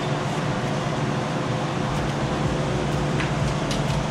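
Steady hum of an electric floor fan running, with a few light clicks and taps about three seconds in.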